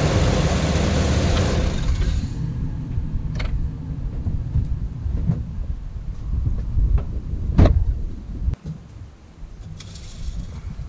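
A Chevrolet 6.0 L Vortec V8 running after an oil change and shut off about two seconds in. A low rumble lingers for several seconds, with a few sharp clicks, the loudest about seven and a half seconds in, and a brief scrape near the end.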